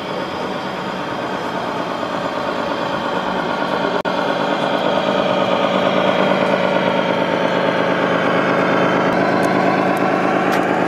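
Engine sound from a scale RC Scania truck, a steady diesel running note played through its sound module's speaker, getting gradually louder as the truck drives closer. It cuts out for a moment about four seconds in.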